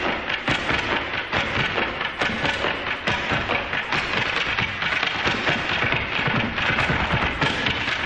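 Tap dancing: a dense, continuous clatter of rapid taps.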